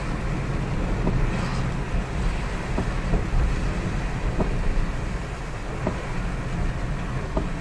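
Car driving in heavy rain, heard from inside: a steady low rumble of engine and road under an even hiss, with a few faint ticks scattered through it.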